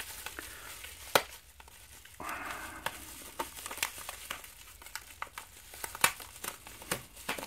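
Plastic bubble wrap crinkling and crackling in the hands while a rubber band is worked off it, with scattered sharp clicks and crackles; the loudest clicks come about a second in and about six seconds in.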